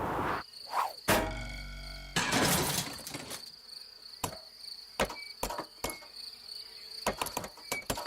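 Insect sound effects: a low buzz about a second in, then a steady high insect whine with scattered sharp clicks that come thicker near the end.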